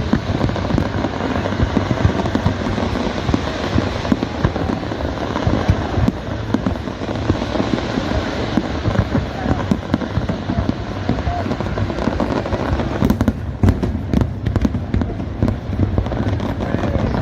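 New Year's Eve fireworks display going off in a dense, continuous barrage of booms. About thirteen seconds in there is a cluster of sharper cracks, with crowd voices beneath.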